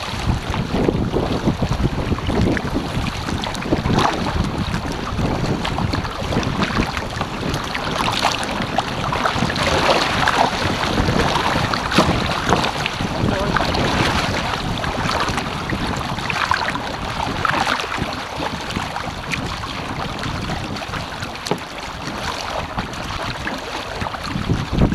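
Wind buffeting the microphone over water rushing and splashing along an Epic V8 surfski's hull as it is paddled through choppy water, with irregular splashes from the paddle strokes.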